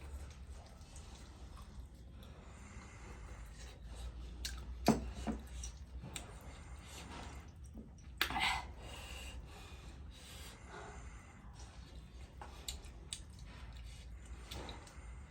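Eating sounds: quiet chewing and handling of food, with two sharp knocks or crunches about five and eight seconds in, over a steady low hum.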